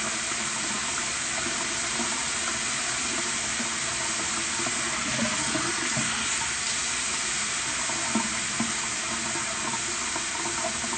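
A steady, even hiss with no rhythm, and faint voices murmuring under it.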